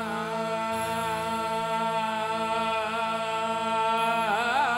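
Devotional folk singing with accompaniment: a long note held steady, breaking into a wavering ornament near the end.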